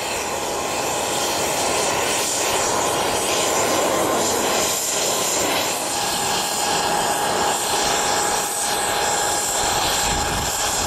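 Twin-engine business jet climbing away after takeoff: steady jet engine noise, with a thin steady whine coming in about halfway through.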